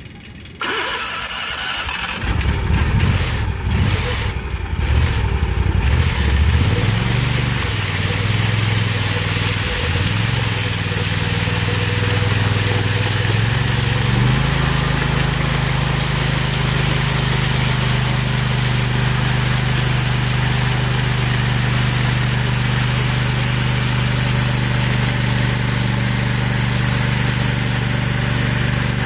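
Ride-on power trowel engine starting about half a second in and running unevenly for a few seconds. It is then throttled up, rising in pitch in steps, and settles into a steady high-throttle run from about 14 seconds in as the pans float over the concrete.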